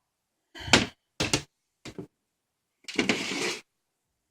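A desktop PC case being handled: three knocks and clunks, the first the loudest, then a longer scraping noise of a bit under a second.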